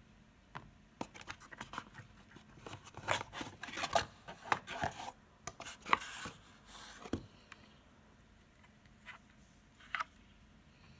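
A plastic-cased motor driver being pulled out of a cardboard box: irregular scraping, rubbing and small knocks against the cardboard, then two faint clicks near the end.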